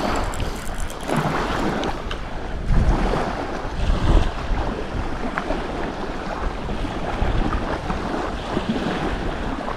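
Wind buffeting the microphone over the steady wash of the sea, rising and falling in gusts, with a few faint clicks.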